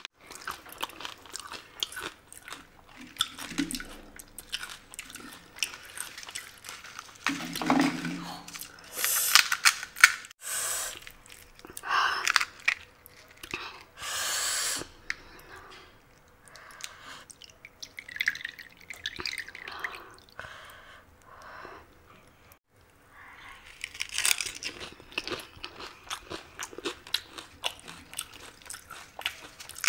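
Close-up eating of pani puri: crisp hollow puri shells crunching as they are bitten and chewed, in many sharp irregular crunches, with wet chewing of the shells filled with spiced water.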